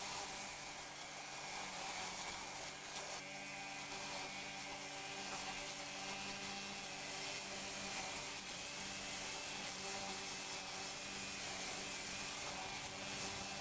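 A high-pressure washer running steadily, with a hum from its pump and the hiss of water spray from a rotary surface cleaner.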